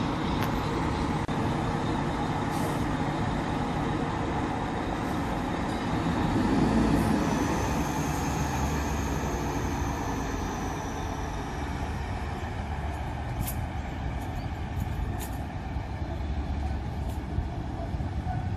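A heavy response truck's diesel engine and slow-moving trams on the rails: a steady rumble that swells a few seconds in as the truck pulls away, with a high whine that rises and falls through the middle and a few short clicks near the end.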